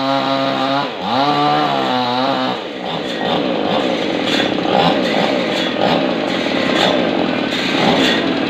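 Two-stroke chainsaw running at high revs. Its pitch dips briefly about a second in and comes back, then from about two and a half seconds it wavers unevenly as the chain works into the big log.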